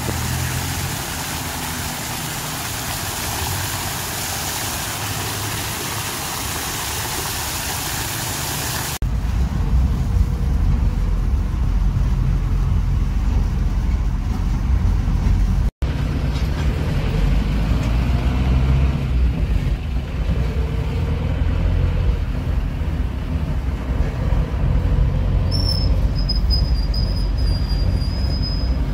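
Fountain water splashing steadily for about nine seconds. It gives way to the low engine and road rumble of a moving songthaew (pickup-truck taxi) heard from its open rear cabin. A thin high whine joins the rumble near the end.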